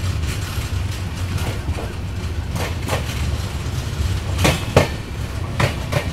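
Passenger train coaches running along the track: a steady low rumble with sharp clacks of the wheels passing over rail joints, mostly in pairs, three pairs in the second half.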